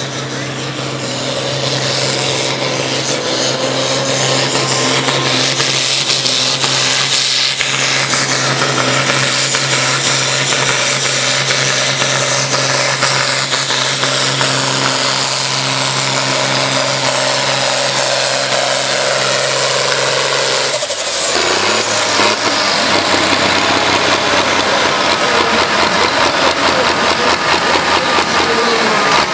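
John Deere tractor's diesel engine running at full power under heavy load as it drags a weight-transfer sled in a tractor pull. About two-thirds of the way in the steady engine note breaks off and drops as the pull ends, and the engine then runs lower and rougher with some rattling.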